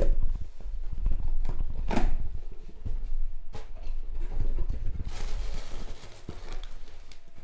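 Knife packaging being handled and opened close to the microphone: rustling and tearing with irregular knocks, including a sharp one about two seconds in and a longer spell of rustling near the end.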